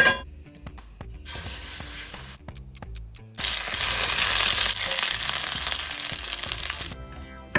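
Food frying in hot oil in a pan: a short sizzle about a second in, then a louder, steady sizzle from about three and a half seconds that cuts off near the end. Background music plays underneath.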